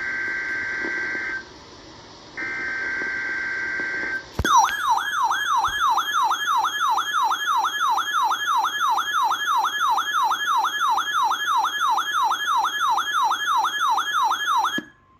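Two buzzy digital SAME header bursts from a NOAA Weather Radio broadcast, then about four seconds in a RadioShack weather radio's own alert siren starts: a loud warble sweeping down and back up about three times a second for some ten seconds before it cuts off abruptly. It is the radio alarming on the weekly test code.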